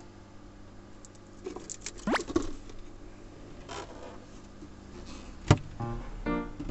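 Light rustling handling noises with a quick rising zip about two seconds in, then one sharp click about five and a half seconds in. Background music begins near the end.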